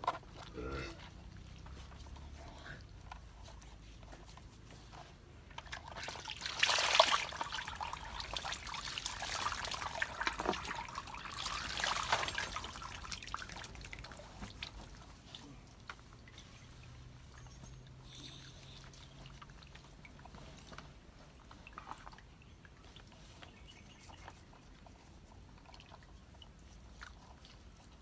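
Water being poured and splashing onto a small dog standing in a plastic basket during a bath, in a run of pours loudest about 7 and 12 seconds in, dying away by about 14 seconds.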